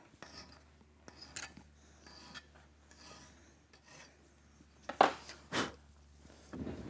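Metal being worked by hand: soft scraping strokes like a file on steel, over a faint steady low hum. Two sharp metal clicks come about five seconds in.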